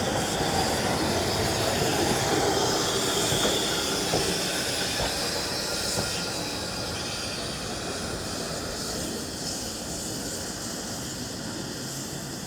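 Heritage railway train running on the track, wheels squealing and clicking on the rails. It is loudest in the first few seconds and gradually fades as it draws away.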